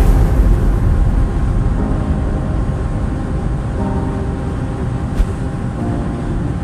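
Ship engines running with a steady low rumble and a few faint steady tones over it; one short click about five seconds in.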